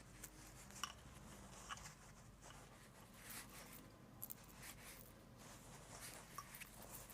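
Near silence with faint rustling and a few small clicks as fabric is handled.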